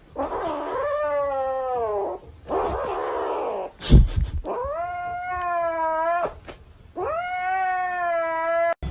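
Cat yowling: three long, drawn-out yowls, the first falling in pitch, with a harsh noisy stretch after the first and a sharp knock about four seconds in.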